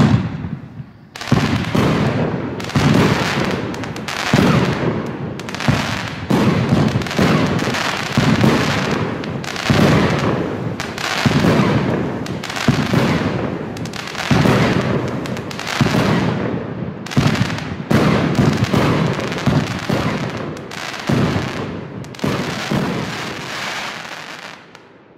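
A 20-shot Funke Chrys Rain Variations firework cake firing shot after shot, roughly one a second. Each shot's thump is followed by the crackling of its cracker stars, and the crackling dies away near the end.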